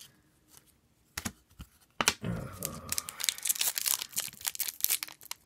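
Foil wrapper of a hockey card pack being torn open and crinkled in the hands. The crackling starts about two seconds in after a near-quiet stretch and keeps going.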